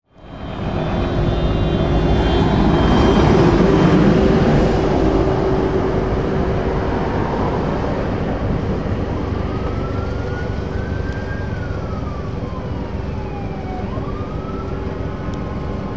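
Road traffic of heavy trucks and cars moving slowly past, a steady engine drone with a constant hum, fading in at the start. From about nine seconds in, a faint high tone slowly rises, falls, then rises again.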